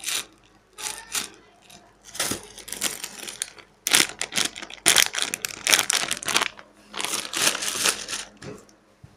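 Plastic packaging crinkling in irregular bursts as squishy toys wrapped in clear plastic bags are handled and put into a plastic shopping bag, the busiest handling in the middle and near the end.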